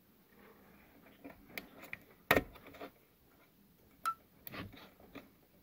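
Scattered plastic clicks and knocks from handling the wiring connector and its locking lever on the back of a car head unit; the loudest, a dull knock, comes about two and a half seconds in, with a sharp click with a brief ring about four seconds in.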